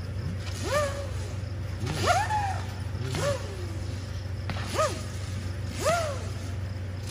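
Whistling fireworks going up one after another: five short whistles, each rising then falling in pitch, about a second apart, over a steady low hum.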